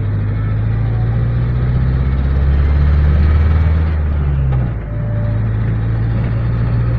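A minibus engine runs under way, heard from inside the cabin as a steady low drone. It grows louder for a few seconds, drops briefly about four and a half seconds in, then settles back to a steady run.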